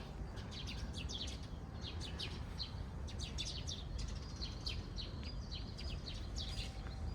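Small birds chirping: many quick, high chirps in a loose, continuous scatter, over a steady low rumble of outdoor background noise.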